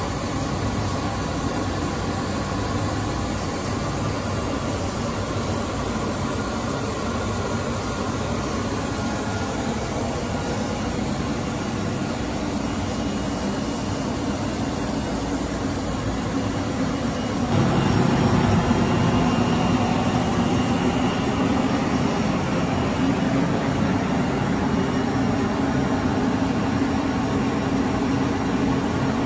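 Steady machinery hum from a powered-up WFL M35G millturn CNC turning center and its auxiliary units, with a low drone. About seventeen seconds in it grows louder and fuller, then holds steady.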